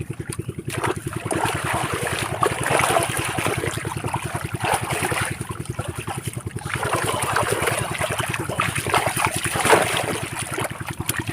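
Water splashing and trickling in irregular clumps as hands work through shallow water, over a steady, rapid low throbbing of about ten beats a second.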